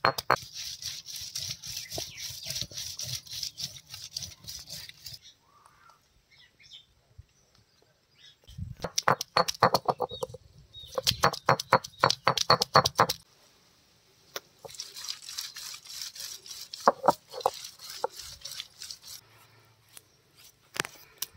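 Stone roller grinding on a wet stone grinding slab (ammi kallu), crushing ginger and then garlic cloves: three bursts of rhythmic rolling and crushing strokes, several a second, separated by short pauses.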